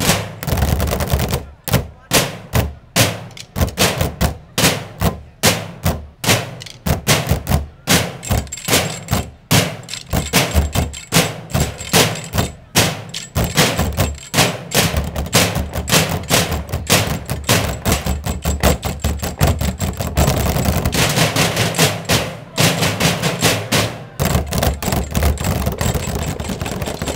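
Percussionists beating drumsticks on rows of metal and plastic trash cans in a rhythmic percussion feature, sharp hits in unison with short gaps between them. The hits come thicker and faster over the last several seconds.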